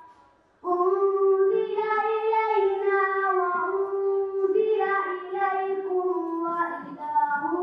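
A girl chanting a Quranic recitation in Arabic: one long melodic phrase with held, ornamented notes, beginning about half a second in.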